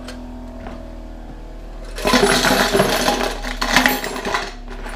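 Small Harbor Freight bench grinder running with a steady hum. About two seconds in, a lathe tool bit is pressed against the wheel, giving a harsh grinding noise for two to three seconds as its cutting edge is sharpened.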